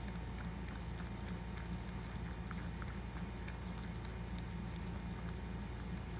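Maltese mother dog licking and nuzzling her newborn puppy: soft wet licking with scattered small clicks over a steady low hum.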